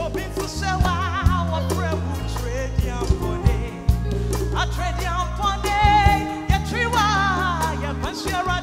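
Live gospel worship music: a singer with a wavering, ornamented vocal line over sustained bass and drums.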